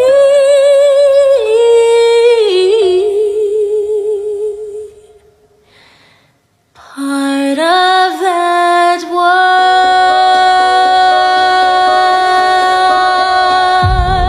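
A woman's solo voice holding long, slow notes with vibrato, almost unaccompanied. The voice fades to near silence about five seconds in, then climbs into one long held note, and a low accompaniment swells in right at the end.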